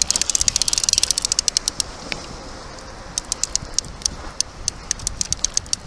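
Fishing reel clicking rapidly, about eight clicks a second, in two runs with a pause of about a second after the first, over wind and water noise.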